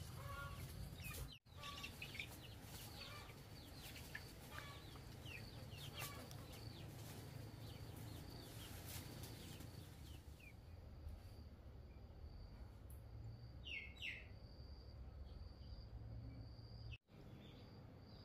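Faint outdoor farmyard ambience: birds chirping and chickens clucking, most busily in the first half, over a low steady hum and a thin steady high tone. The sound cuts out briefly twice.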